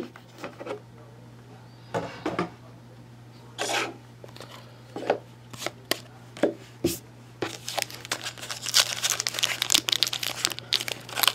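Trading cards handled by hand, with short swishes and taps as they slide over one another. From about seven and a half seconds in, a foil trading-card pack wrapper is crinkled and torn open, the crackle growing busier toward the end. A steady low hum runs underneath.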